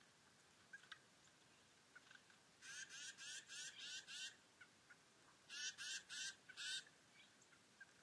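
A bird calling in two runs of harsh notes, about three a second: six notes, a short pause, then four more.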